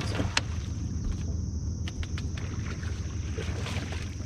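A steady low hum on a fishing boat, with a thin steady high whine over it and a few light clicks and knocks near the start.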